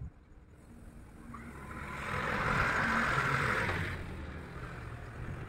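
A motor vehicle passing by, its engine and tyre noise swelling to a peak and fading away over about three seconds.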